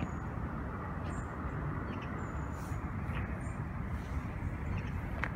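Steady low outdoor background rumble, with a few faint short high chirps scattered through it.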